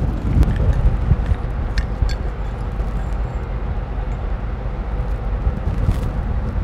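Steady low rumble of factory background noise, with a few faint clicks as a metal bracket and its cable connectors are handled.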